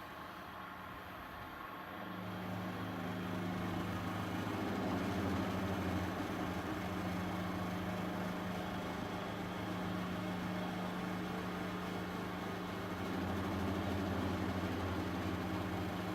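CNC milling machine running a cut in aluminium. About two seconds in, a steady low hum joins and holds, as the machine's cooling is switched back on.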